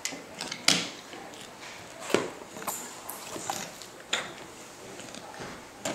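A handful of light knocks and clicks, spaced a second or so apart, as a toddler handles a small plastic toy and a picture book on a hardwood floor.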